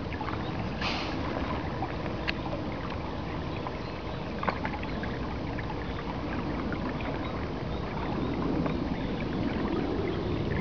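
Water rushing and lapping along the hull of a small inflatable boat under way, with wind on the microphone; a brief hiss about a second in.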